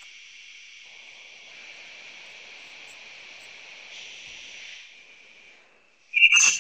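Steady hiss of an open audio line in a web conference, with a loud short burst near the end.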